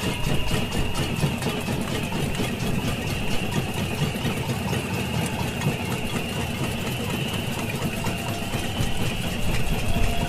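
Batucada samba drum group playing a fast, even beat with a heavy low drum pulse.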